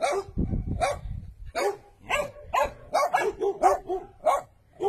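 Dog barking repeatedly, about a dozen short barks, coming faster in the middle.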